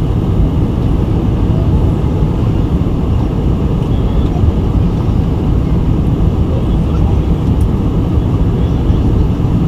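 Steady low rumble of cabin noise inside a Boeing 747-400 in flight on approach: airflow over the fuselage and its four Pratt & Whitney PW4056 engines.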